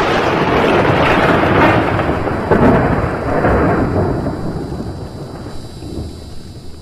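Logo-intro sound effect: a loud, thunder-like crackling rumble that hits suddenly and slowly fades away.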